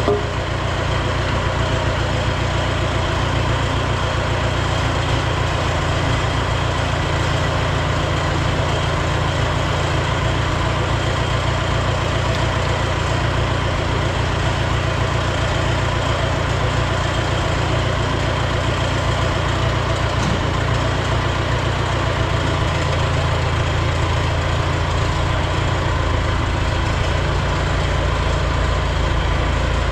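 A steady, low mechanical drone, like a motor or engine running at constant speed, that holds without a break.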